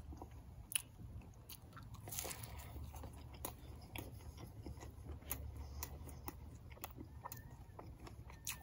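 A person chewing a mouthful of toasted-bread breakfast sandwich close to the microphone: quiet mouth sounds with scattered sharp crunching clicks.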